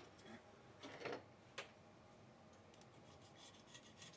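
Faint clicks and knocks of a metal hand tool being handled, then, from about halfway in, a run of quick, light scrapes of the tool on the aluminum face of the ABS hydraulic unit as it is cleaned.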